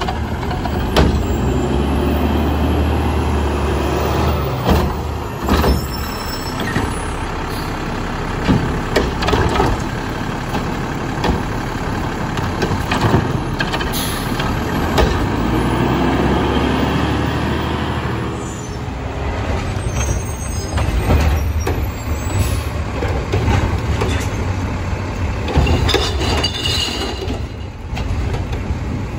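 Mack LEU front-loader garbage truck with a Heil Half/Pack body and Curotto Can at work: the engine runs and rises in revs several times, with repeated metal knocks and clanks from the truck's cart-handling mechanism.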